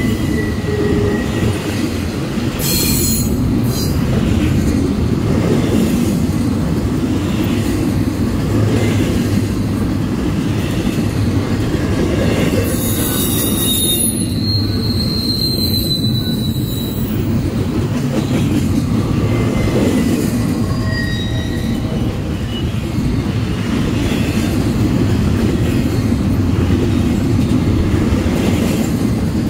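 Double-stack intermodal well cars of a long freight train rolling past, a steady loud rumble and clatter of steel wheels over the rails at the diamond crossing. A high-pitched wheel squeal rises for a few seconds around the middle.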